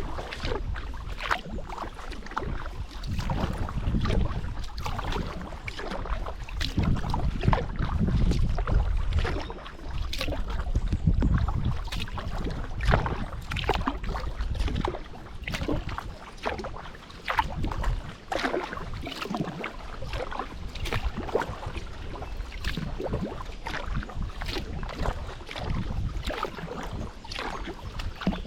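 Kayak paddle blades dipping and splashing in the water, with water lapping and trickling off the blades in an irregular stream of small splashes. In the first half there is a low rumble of wind on the microphone.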